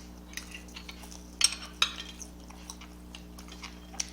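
Light clicks and taps of tableware during a meal, with two sharper clicks about a second and a half in, over a steady low hum.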